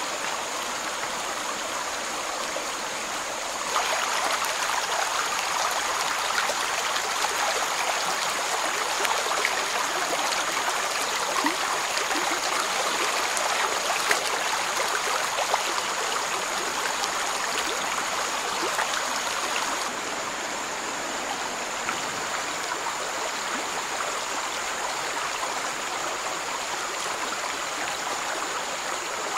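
Stream water running and splashing steadily over rocks, with a thin steady high whine above it. The water gets louder about four seconds in and drops back a little about twenty seconds in.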